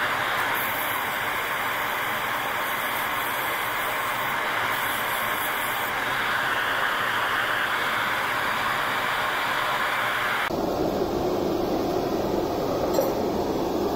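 Steady, loud rushing hiss of workshop machinery. About ten seconds in it switches abruptly to a duller, lower rush.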